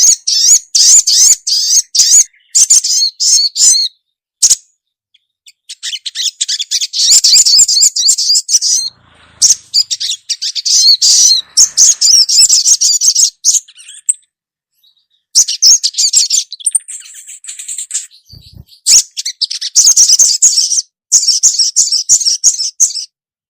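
Female crimson sunbird (sogok ontong) calling: rapid, high-pitched chattering trills in long bursts broken by short pauses. This is a calling song that draws males.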